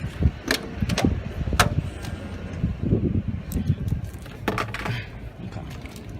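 A few sharp metallic clicks and clinks of hand tools and small parts being handled, over a low steady rumble.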